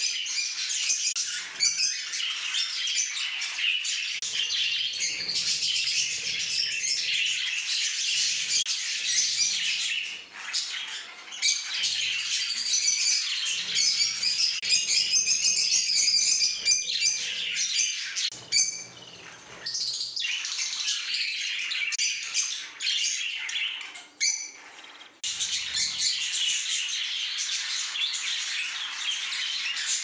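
Budgerigars chattering: a dense, continuous warbling of many quick chirps, with a couple of brief lulls.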